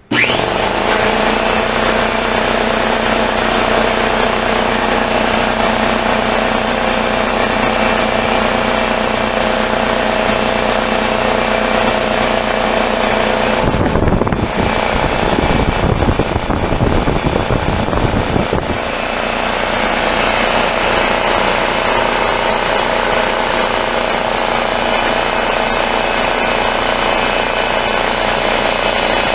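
A 33-gallon Craftsman piston air compressor starts up suddenly and runs steadily, a loud, rapid chugging as it pumps air into its tank. For a few seconds in the middle the running turns rougher and heavier in the low end, then settles back.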